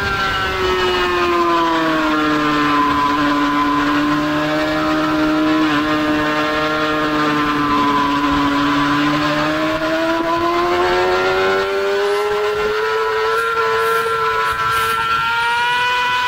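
Honda CBR600RR's inline-four engine at high revs, heard onboard over wind rush. Its note falls over the first few seconds, holds steady, then climbs again from about ten seconds in as the bike accelerates.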